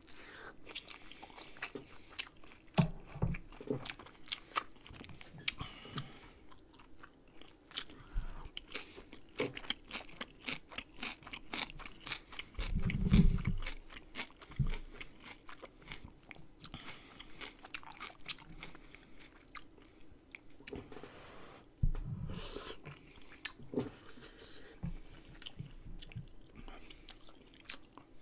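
Close-miked chewing and biting of soft dumplings, with steady small wet mouth clicks and smacks. Two louder low thumps stand out, about halfway through and again later on.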